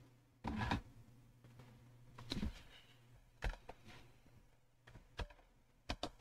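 A few scattered clicks and taps of a computer keyboard and mouse, two of them close together near the end, over a faint low steady hum.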